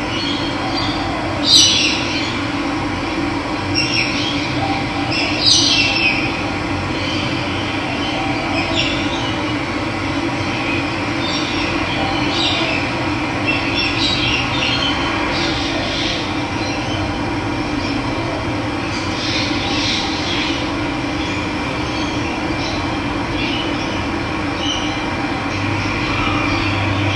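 Running water rushing steadily, with wild birds calling over it in short chirps and calls. The loudest calls come about a second and a half in and again near five and a half seconds, with scattered others after.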